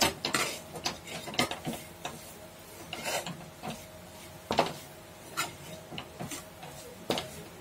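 Metal spatula stirring and scraping a thick masala paste around an aluminium kadhai, with irregular scrapes and light knocks against the pan as the masala is roasted.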